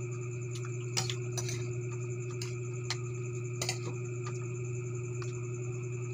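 Forks and spoons clicking and scraping against ceramic plates a few times, over a steady low hum.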